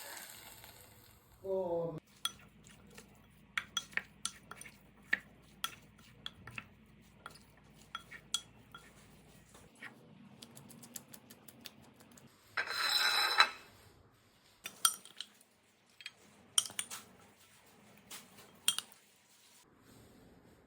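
Cutlery clinking and tapping irregularly against a dish, typical of mixing or tossing a salad. About thirteen seconds in, a louder rushing noise lasts for about a second.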